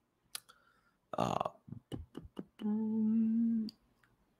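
A man humming a flat, held "mmm" for about a second, preceded by a few sharp clicks and a short breathy noise.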